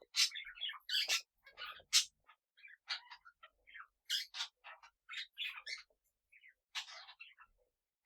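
Small pet parrots chirping and squawking in short, irregular calls, several a second with brief pauses between them.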